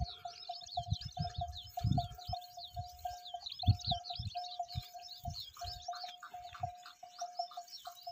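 Small birds chirping and chattering in the desert scrub, with a short low note repeated several times a second alongside. Scattered low thumps, the loudest about three and a half seconds in.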